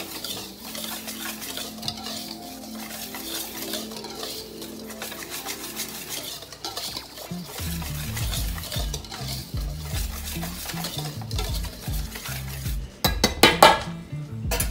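Wire whisk stirring a dry flour and cornmeal dredge in a stainless steel bowl: fast, continuous scraping of metal wires against the bowl. A few loud metal knocks come near the end.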